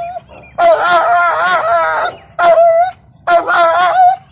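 Female rottweiler giving three loud, wavering, high-pitched howling cries, the first long and the other two shorter: a distressed dog struggling while held down for wound treatment.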